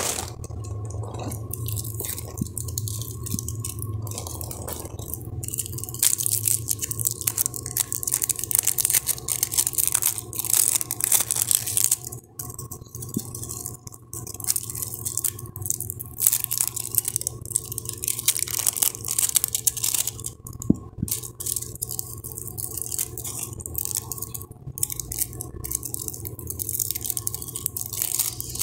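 Clear plastic wrapping crinkling and tearing as it is pulled off plasticine blocks by hand, in irregular crackles over a steady low hum.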